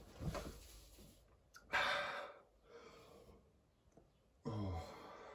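A man breathing heavily and sighing against the burn of a Carolina Reaper chip in his mouth, with a strong exhale about two seconds in and a short low groan near the end.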